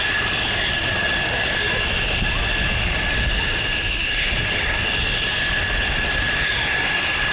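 Mitsubishi F-2 fighter's single General Electric F110 turbofan whining steadily at low taxi power as the jet rolls past, a high steady whine over a low rumble.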